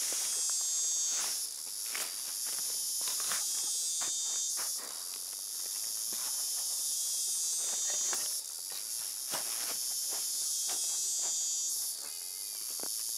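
A steady insect chorus buzzes high-pitched and loud, breaking off briefly about four times, around 1.5, 5, 8.5 and 12 seconds in. Beneath it are soft scrapes and knocks of a small metal spade cutting into loose soil.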